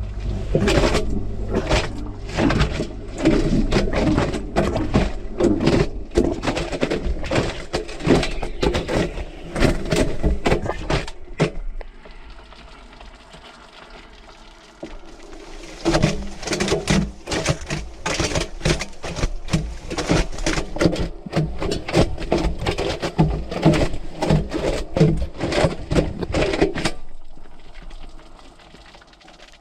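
Washing machine drum tumbling a load, with a rapid, irregular clatter of knocks as a camera in its waterproof housing and the wet laundry are thrown against the drum, over a low motor hum. The tumbling pauses for a few seconds partway through, as the drum stops between turns, then starts again.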